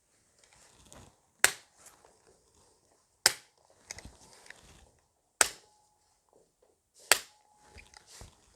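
Activator V chiropractic adjusting instrument firing four times, each a sharp click, about two seconds apart. Each click is an adjusting impulse delivered to the L5 vertebra.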